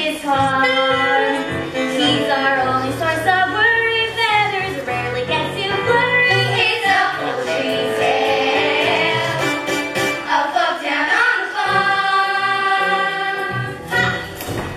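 Voices singing a musical-theatre song over an instrumental accompaniment with bass notes, with one long held note partway through.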